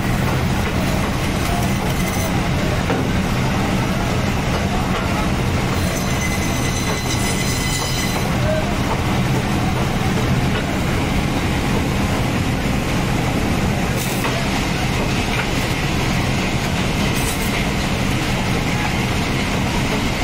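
Electric band saw (meat and bone saw) running with a steady low hum, its blade cutting through a whole tuna.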